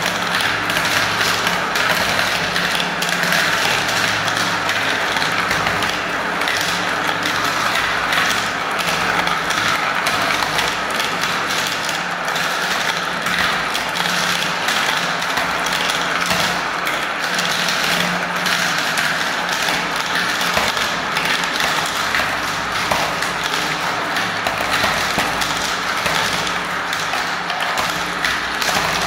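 Many glass marbles and plastic balls rolling and swirling around the clear plastic funnel bowls of a marble run: a continuous rolling rattle full of small clicks as they knock together and drop through the centre holes.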